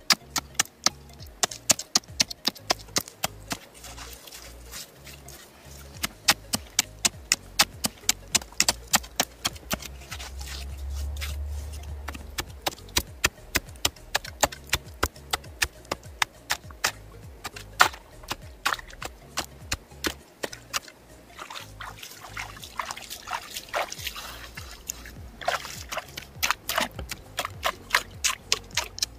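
Sharp knocks repeated about three times a second, in runs broken by short pauses, with a low rumble for a couple of seconds near the middle.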